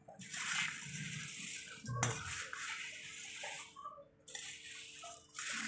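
A metal slotted spoon stirring puffed-rice chivda in a metal pan: a dry rustling hiss with scraping of spoon on pan. It comes in a few short stretches that break off abruptly, with one sharp click about two seconds in.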